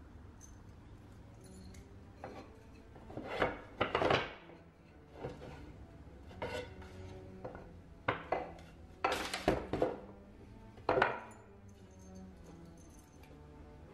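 Solid wooden trestle parts knocking and clattering against each other as they are picked up and shifted in a cardboard box: a series of irregular knocks, loudest in a cluster just before the middle and again near the three-quarter mark.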